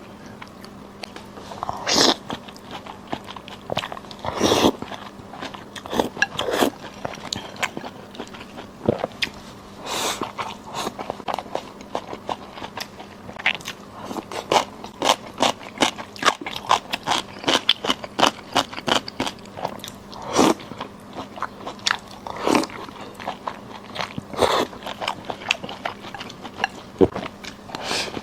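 A person eating: chewing and biting food with many irregular wet clicks and crunches, and louder mouthfuls every few seconds.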